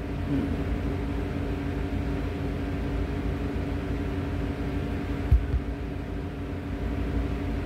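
Steady low machinery hum with several constant tones, and one soft thump about five seconds in.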